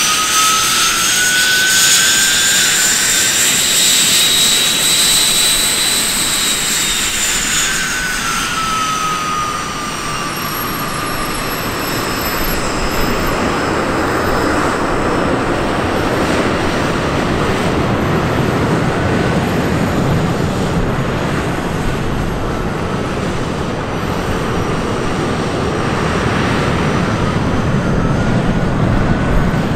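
Jet Provost Mk 52's Viper turbojet running while the aircraft taxis past. Its high whine bends up and then down in pitch over the first eight seconds or so, then the exhaust roar grows deeper and fuller in the second half.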